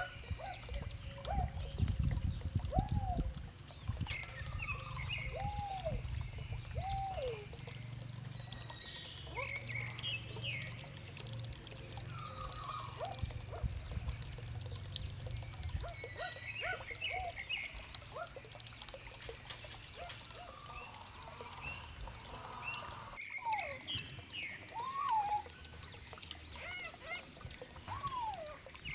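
Caged birds calling: repeated short arched call notes and scattered higher chirps, over a low steady hum that stops about three-quarters of the way through.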